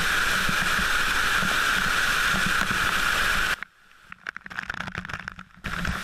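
Waterfall water rushing and pouring right onto and around an action camera, a loud steady rush. About three and a half seconds in it cuts out abruptly to a much quieter stretch with scattered crackles and pops, and the rush comes back near the end.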